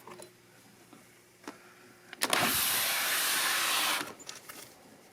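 A window sliding open along its track, one steady scraping rush lasting about two seconds, after a light click.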